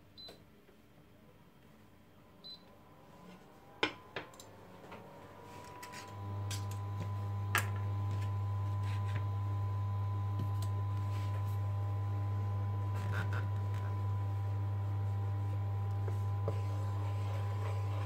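Induction cooktop being switched on: short high touch-control beeps, then the hob powering up, with a rising fan tone and, from about six seconds in, a loud steady low hum with a high whine under the pan. A few light clicks and taps of the wooden spoon against the pan sound over it.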